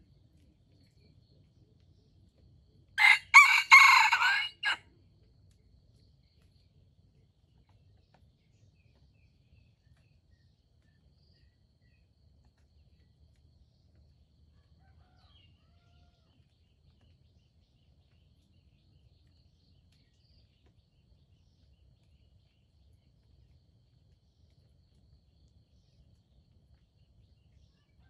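A red junglefowl rooster crows once, a short crow of about a second and a half starting about three seconds in.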